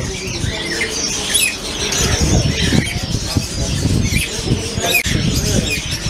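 A shop full of caged parrots and other birds calling at once: many short chirps and squawks overlapping, over a low steady rumble.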